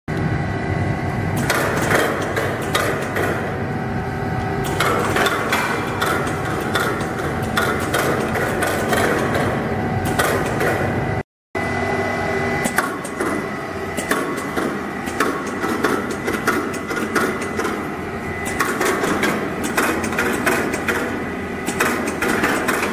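Conveyor weight-sorting machine running, its belts giving a steady whine under frequent irregular clicking and clacking from the mechanism as items are weighed and sorted.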